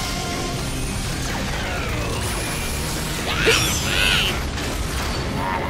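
Animated robot-transformation sound effects over background music: mechanical effects and sweeping whooshes that glide in pitch, loudest in a burst about three and a half seconds in.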